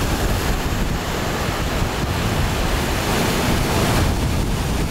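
Sea surf washing and breaking around coastal rocks, a steady rushing noise, with wind buffeting the microphone.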